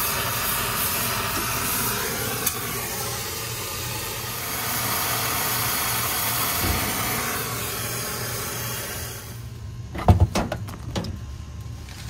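Brazing torch flame hissing steadily while it heats the copper suction-line joint on the compressor to unsweat it. The flame cuts off about nine seconds in, and a few sharp metallic knocks follow about a second later.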